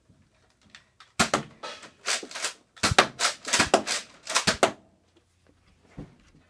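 Toy foam-dart blaster fired over and over: a quick, irregular run of about a dozen sharp clacks and pops lasting roughly three and a half seconds, then one softer thud near the end.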